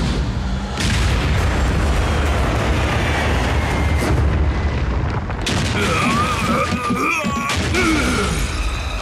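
Cartoon battle sound effects: explosions booming with a deep, continuous rumble. In the second half a wavering high whine and a few falling tones sound over the rumble.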